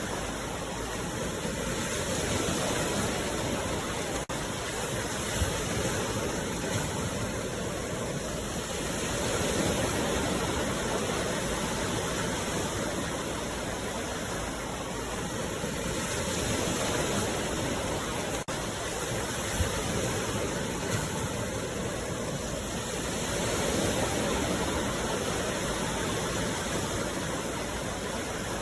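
Sea waves washing ashore: a steady rush of surf that swells and eases every several seconds.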